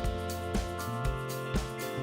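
Background music: a band track with a steady kick-drum beat under held instrumental chords.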